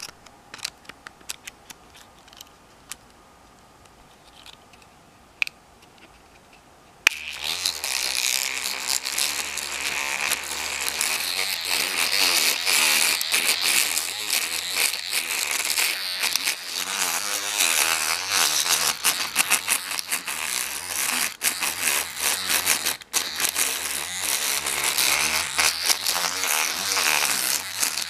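A few light clicks as the pick and tension wrench are set. Then, about seven seconds in, an electric toothbrush motor switches on and buzzes loudly, its thinned pick rattling the pins inside a four-pin Master No. 5 padlock as an improvised electric pick gun.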